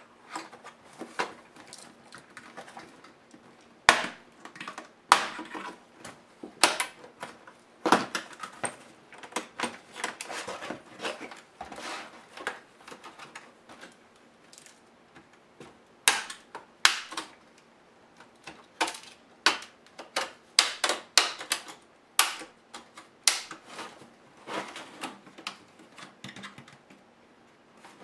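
Irregular plastic clicks, snaps and taps from a Compaq CQ70 laptop's palmrest top case as it is handled, turned on edge and pried at. Some clicks are sharper and louder, and there is a quieter stretch around the middle.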